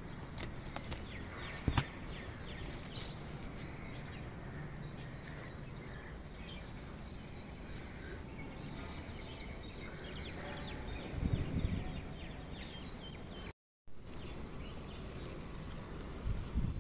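Outdoor background noise with faint bird calls and a couple of low thumps, cutting out completely for a moment near the end.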